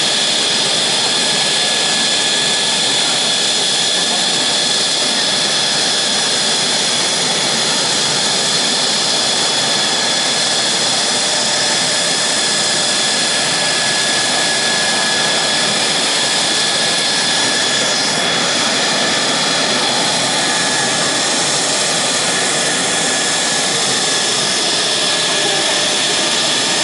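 Mitsubishi F-2's single General Electric F110 turbofan running on the ground during an engine run-up: a loud, steady jet noise with high whining tones, holding even throughout.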